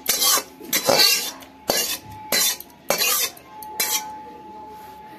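A spoon scraping and clattering against a metal pot as the cooked chicken is scooped out and poured into the biryani pot: about six quick scrapes in the first four seconds, then quieter.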